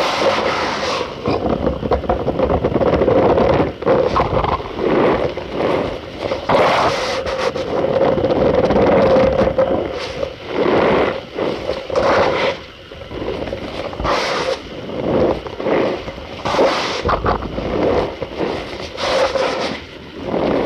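Cornstarch powder being squeezed and pressed, giving repeated squeaky crunches in irregular strokes.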